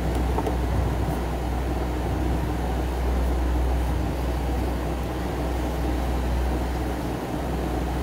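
A steady low hum with a rumbling noise.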